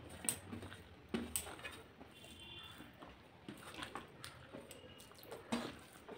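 Fingers mixing and gathering rice and dal on a stainless steel plate, with a few sharp taps and scrapes against the metal, along with chewing mouth sounds.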